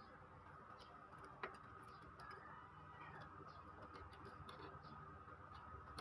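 Near silence with faint clicks and ticks of a plastic flex cable and printer parts being handled, with one sharp click about a second and a half in.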